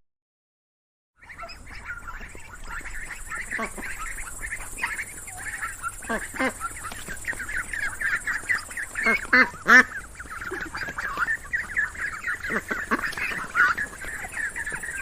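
A flock of ducks quacking and chattering over one another in a continuous clamour, starting after about a second of silence. A few louder single quacks stand out in the middle.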